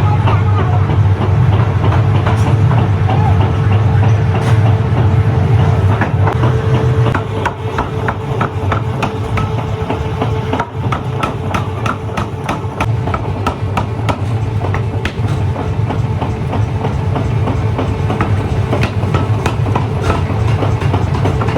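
Heavy workshop machinery running with a steady low hum and a held tone. From about eight seconds in come many quick, irregular light metallic knocks.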